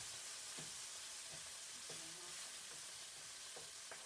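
Chopped chicken breast sizzling in oil in a frying pan, with a few light clicks of a spatula against the pan as the pieces are tossed.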